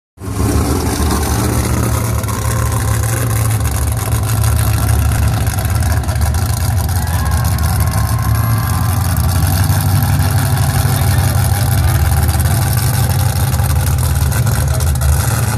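Lifted mud truck's big engine running at low revs with a steady, deep rumble.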